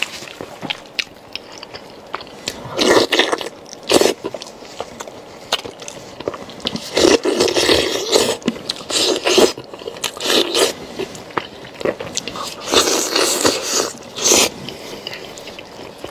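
Close-miked eating of braised bone-in beef: meat being torn apart by hand and chewed, in irregular loud bursts a second or few apart.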